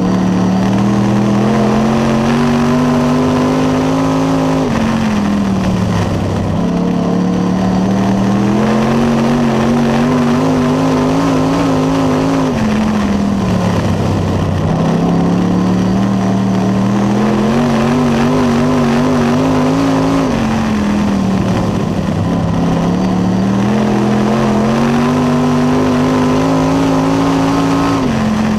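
Dirt late model race car's V8 engine at race pace, heard from inside the cockpit. The engine note climbs steadily under throttle, then falls away sharply when the throttle is lifted for the turns. This repeats about every seven to eight seconds, four times.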